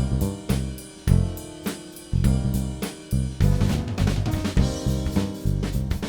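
Background music with a drum kit playing a steady beat of kick, snare and hi-hat under sustained instrumental notes.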